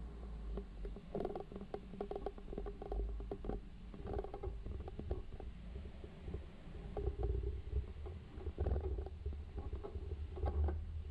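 Vehicle rolling slowly over a rough, potholed dirt road: a steady low rumble with irregular knocks and rattles from the bumps.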